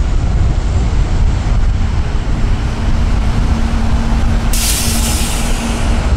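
Douglas DC-8-73's four CFM56 turbofan engines running at high power as it starts its takeoff roll: a loud, steady, deep rumble with a steady hum coming in about two and a half seconds in. A high hiss joins about four and a half seconds in.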